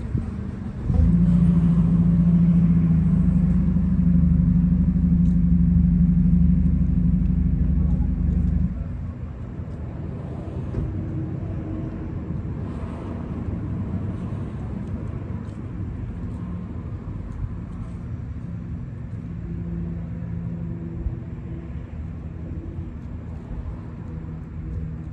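A motor runs with a steady low hum, starting suddenly about a second in and cutting off abruptly about eight seconds later. A quieter low rumble follows.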